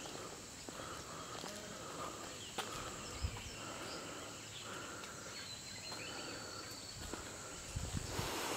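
Forest ambience: insects keep up a steady high hum while a mid-pitched call repeats roughly once a second, with a short thin whistle near the middle. Footsteps start to scuff in near the end.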